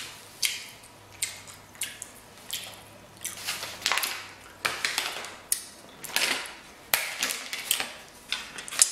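Black plastic takeout container lid being handled and lifted: a series of irregular sharp clicks and crackles, about one or two a second.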